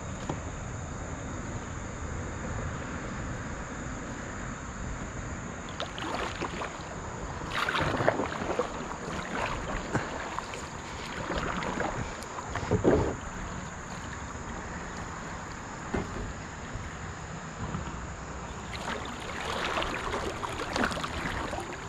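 Kayak paddle strokes splashing in river water, in clusters about six seconds in, again from about eleven to thirteen seconds, and near the end. Under them run a steady high insect drone and low wind rumble on the microphone.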